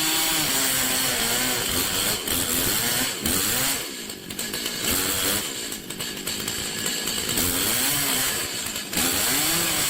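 Two-stroke chainsaw running, its engine pitch rising and falling over and over as the throttle is worked, with a brief drop in loudness about four seconds in.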